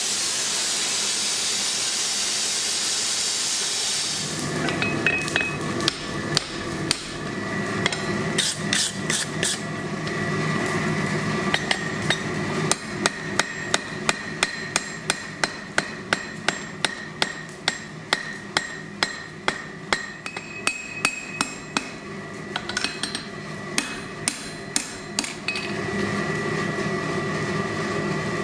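A hand hammer forging hot steel on an anvil: scattered blows at first, then a steady run of about three strikes a second, with a ringing tone under them and a steady low hum behind. A loud hiss fills the first four seconds and then stops.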